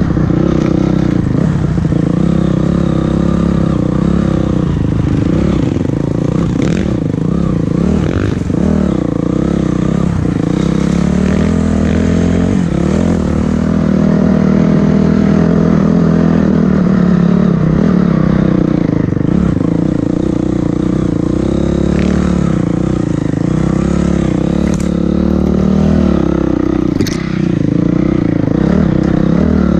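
Dirt bike engine heard from on board, its revs rising and falling with the throttle over rough ground, with a few sharp clicks and clatter from the bike over the bumps.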